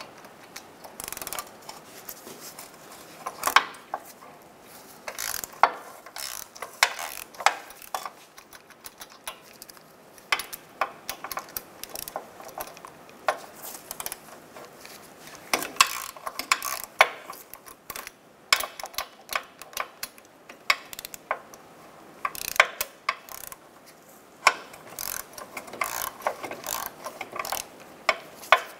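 Hand ratchet with a 14 mm socket on an extension clicking in short, irregular runs of quick clicks with pauses between them, as the wheel bearing bolts are backed out of the steering knuckle.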